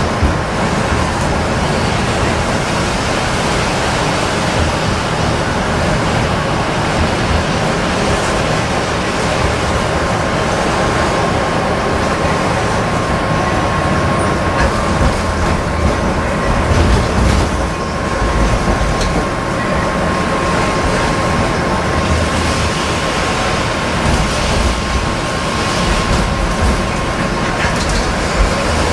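Tatra T4D tram running on its rails, heard from inside the car: a steady rumble of wheels and running gear with a thin steady whine over it. A few knocks come through around the middle as the wheels cross a track junction.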